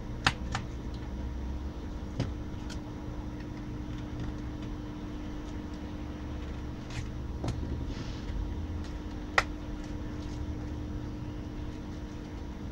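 Scattered light clicks and taps as a laptop power adapter's plastic case and small hand tools are handled and set down on a workbench, the sharpest about nine seconds in, over a steady low background hum.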